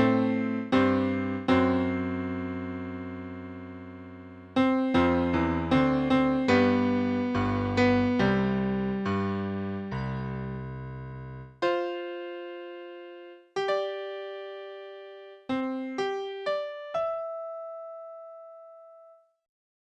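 Piano-sounding keyboard music: repeated chords low in the range, then a few sparser higher notes about halfway through, ending on a single held note that fades out near the end.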